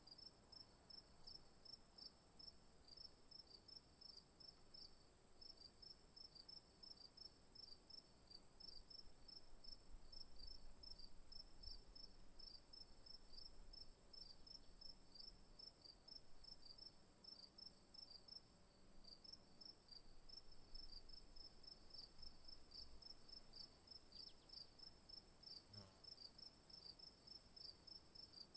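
Faint crickets chirping in a steady rhythm, several chirps a second, over a constant high-pitched insect drone.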